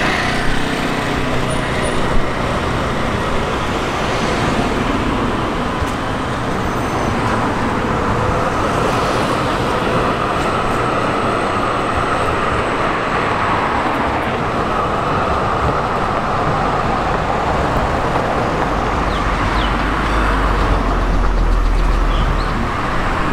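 City street traffic: cars and trams passing on the road, a steady wash of traffic noise with a deep rumble building about nineteen seconds in.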